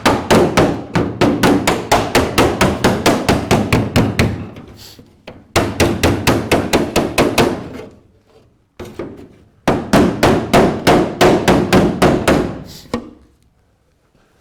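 Rapid hammer blows, about five a second, in three runs with short pauses between, knocking thick body filler off a Land Rover Series 3 body panel.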